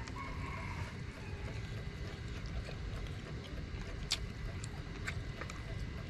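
Eating noodles with chopsticks from a bowl: quiet mouth and utensil sounds with a few sharp clicks, the clearest about four seconds in, over a low steady rumble.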